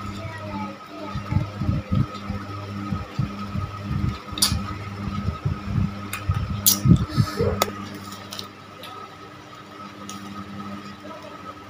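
Drinking glasses being handled and set down on a tabletop: a run of dull thumps with a couple of sharp glass clinks, about four and about seven seconds in, over a steady low hum. The handling stops about eight seconds in and only the hum remains.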